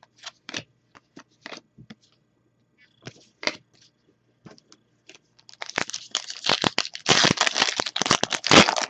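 Trading cards being flicked and handled with scattered light clicks, then a foil card-pack wrapper being torn open and crinkled, loud and crackly for the last three seconds or so.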